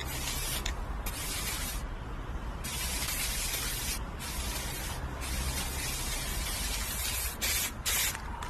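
Hissing spray in about six bursts of half a second to two seconds each, with short gaps between them, over a steady low rumble.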